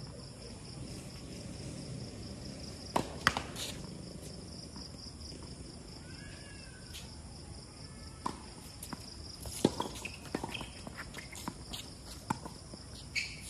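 Tennis balls struck by rackets and bouncing on a hard court: two sharp pops about three seconds in, then a run of pops and bounces from about eight seconds in as a doubles point is played, the loudest near ten seconds.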